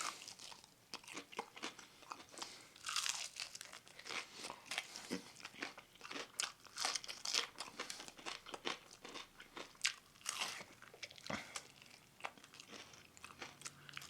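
A person chewing crispy fried chicken close to the microphone: many irregular sharp crunches of the fried breading, with a few louder bites among them.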